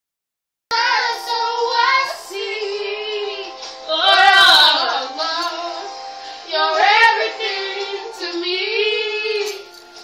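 Two amateur voices singing a song together, loud and unpolished, starting after a brief silence about a second in.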